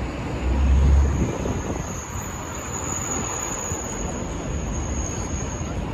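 Wind buffeting the microphone over steady street traffic noise during a dust storm, with a strong gust rumble about a second in. A thin, steady high whine sounds through the middle.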